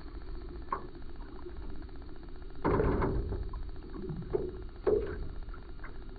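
A few dull knocks and thumps over a low steady rumble; the loudest comes about two and a half seconds in, with two sharper ones near the end.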